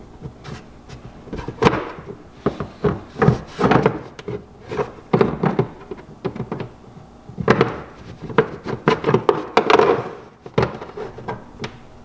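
Plastic push pins being pried out of the plastic floorboard of a 2022 Polaris Ranger 570 SP with a push-pin removal tool: a run of sharp plastic clicks, pops and knocks in irregular clusters.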